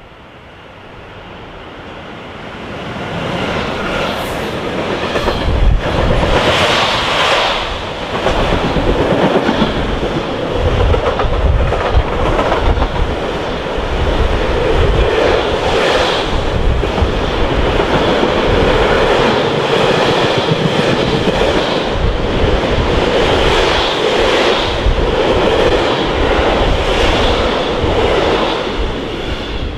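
A BLS Re 485 electric locomotive hauling a freight train of tank containers and container flat wagons passes close by. It grows louder over the first few seconds as it approaches, then the wagons run past in a steady loud rumble, with wheels clattering over rail joints and a few brief high squeals.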